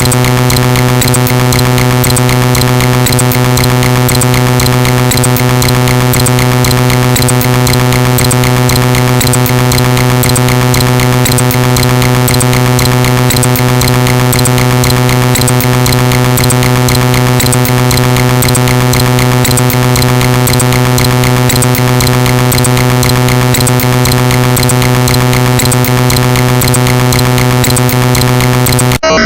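Loud, harsh computer-generated buzz from a joke malware program's sound payload: a dense stack of steady tones that holds unchanged, then cuts off abruptly near the end.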